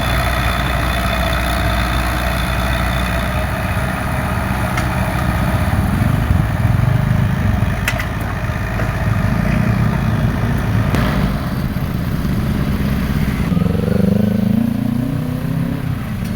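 Excavator's diesel engine running steadily, with a couple of sharp knocks partway through.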